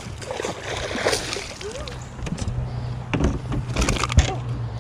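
Water sloshing and splashing against a fishing boat, with sharp knocks on the hull. A low steady hum comes in about halfway through.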